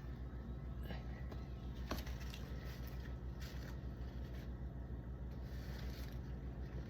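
A knife blade scraping and peeling dried, stuck-on caramel off a fridge shelf, a few faint short scrapes, over a steady low hum.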